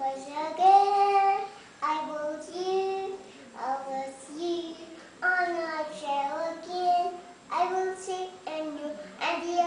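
A toddler singing in a high voice, phrase after phrase of held, gliding notes with short breaks between them.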